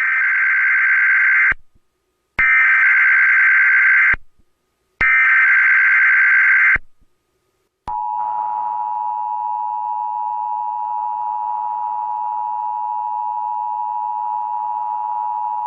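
Emergency Alert System activation tones: three warbling bursts of SAME header data, each about a second and a half long with short gaps between, then the steady two-tone attention signal held for about eight seconds. Together they open a tsunami warning alert.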